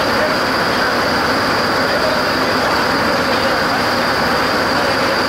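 Passenger train coaches rolling along the track: a steady rumble of wheel and rail noise with a thin, high whine over it.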